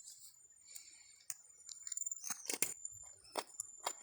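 A few faint, scattered scrapes and clicks, the loudest a little past halfway, over a thin steady high-pitched whine.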